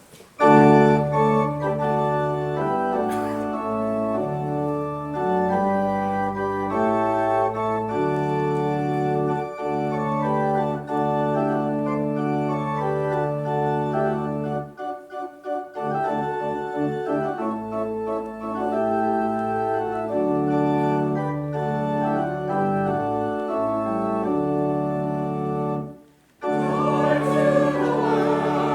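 Church organ playing slow, sustained chords over deep bass notes. It stops briefly about 26 seconds in, and then a choir starts singing with it.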